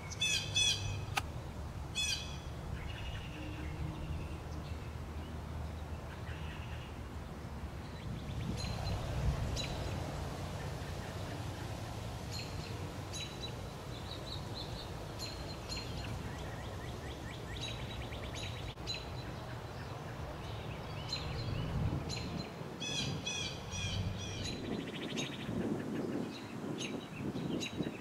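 Birds chirping in short bursts of quick, high notes, near the start, around the middle and again near the end, over a steady low background rumble.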